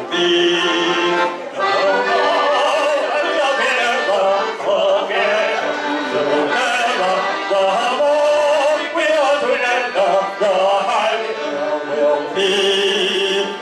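Male vocal duet singing long, wavering held notes over a piano accordion accompaniment.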